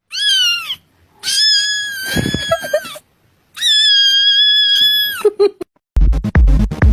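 A cat's high-pitched meows, a meme sound clip: a short call that falls in pitch, then two long held cries at a steady pitch. About six seconds in, electronic dance music with a steady drum beat starts.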